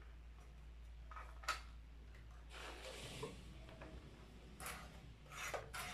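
Handling noise from a circular saw being picked up and turned over: a few light knocks and clicks, with a short rustle partway through.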